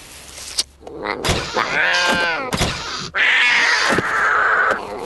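Cartoon cat yowling in calls that rise and fall, mixed with a few sharp thumps.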